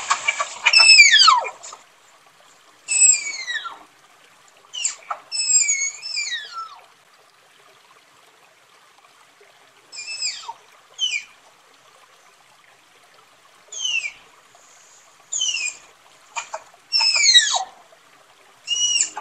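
Tapir giving repeated high-pitched whistling squeals, each falling steeply in pitch, in short bouts separated by pauses of a few seconds.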